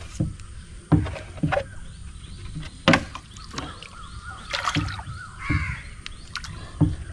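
Rainwater being bailed out of a wooden canoe with a plastic bowl: repeated irregular scoops and splashes of water, the loudest about three seconds in. Birds call in the background.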